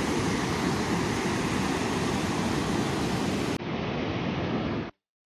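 Floodwater rushing steadily over the overflow weir of a large irrigation tank that has filled and is spilling after heavy rain. The sound turns duller about three and a half seconds in, then cuts off abruptly into silence.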